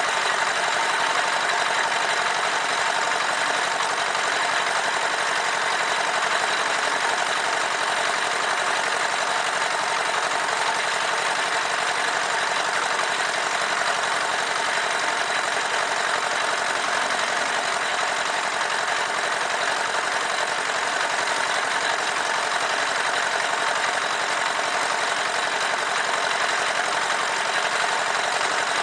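Small horizontal single-cylinder diesel engine driving a drum concrete mixer, running steadily at an even speed.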